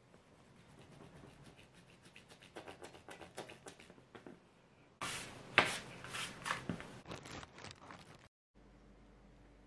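Ridged plastic rolling pin rolled back and forth over soft bread dough on a wooden board: light clicking and rubbing, growing louder about halfway through with one sharp knock. For the last second only a faint steady room hum remains.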